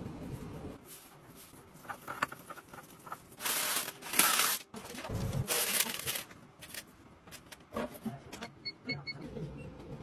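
Rustling and crinkling of a paper liner and packaging being handled, with scattered clicks and knocks. Three quick electronic beeps come near the end.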